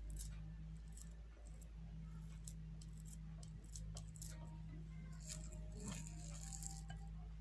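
Faint, scattered soft clicks and scrapes of a silicone spatula pressing and spreading a minced-meat filling into a hollowed burger bun, over a steady low hum.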